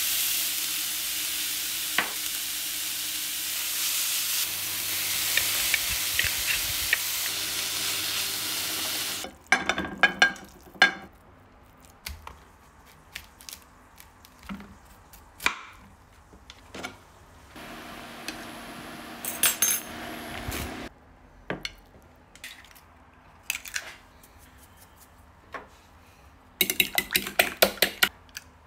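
Grated carrot sizzling in oil in a frying pan, stirred with a spatula, for about the first nine seconds. Then scattered knife knocks and cracks as cauliflower is cut on a wooden board. Near the end comes a fast clinking of a fork whisking eggs in a glass bowl.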